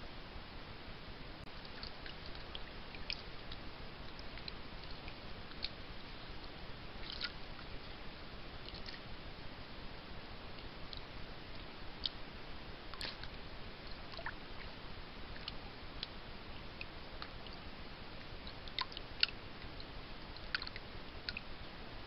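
Steady hiss of a trail camera's microphone, with scattered short clicks and crunches throughout. In the later part these are a fisher chewing on a trapped beaver's carcass.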